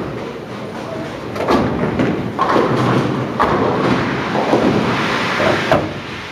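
Bowling-alley background din: a steady rumble with several sharp knocks and clatters, the loudest near the end.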